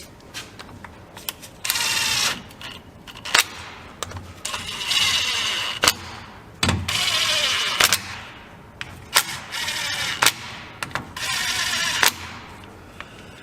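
Cordless power tool running the differential cover bolts in, with four short bursts of rapid ratcheting whir and sharp metallic clicks between them as the socket is moved from bolt to bolt.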